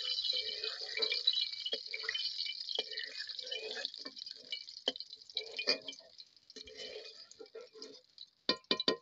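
Hot oil sizzling and crackling in a metal kadai while a metal spatula stirs and scrapes through it; the hiss fades after the middle. Near the end the spatula knocks three times on the pan, quickly and ringing.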